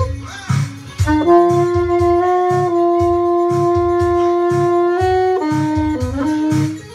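Saxophone playing a melody over a backing track with a steady beat: a long held note from about one second in until about five seconds, then a short run of lower notes.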